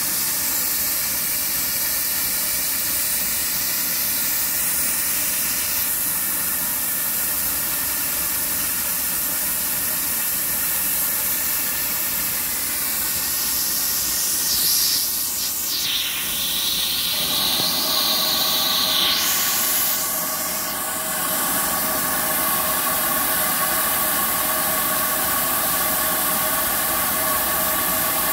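Steam hissing steadily from GWR Saint-class 4-6-0 locomotive No. 2999 'Lady of Legends' standing in steam. About halfway through, a louder, higher hiss swells for several seconds and then fades. After that, several steady tones in the hiss grow stronger.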